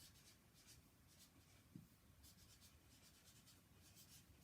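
Faint scratching of a pen writing on paper, a series of short strokes, with one soft tap just under two seconds in.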